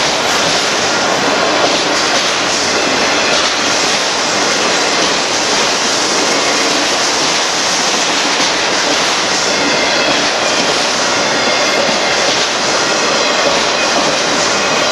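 Union Pacific autorack freight train rolling past: a steady, loud noise of steel wheels on the rails and the passing cars.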